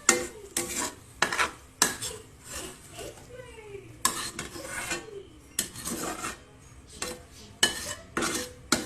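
A metal spoon or ladle scraping and clanking against a cooking pot, in about a dozen irregular strokes, as food is scooped out and served.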